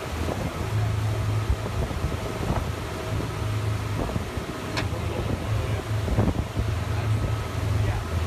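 Boat engine running with a steady low drone, under a haze of wind and water noise.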